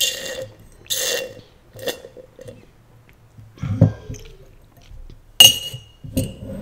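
Child slurping the last of a drink through a straw from a nearly empty glass mason jar: three short, noisy slurps of air and liquid. About five and a half seconds in, a sharp clink with a brief ring as a metal straw knocks against the glass, followed by a second, softer knock. A short low sound comes between them, near the middle.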